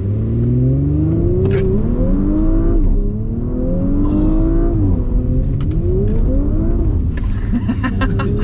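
Stage 1-tuned Audi RS5's 2.9-litre twin-turbo V6 on its stock exhaust, heard from inside the cabin, accelerating hard through the gears: the revs climb and drop sharply at each upshift, three times.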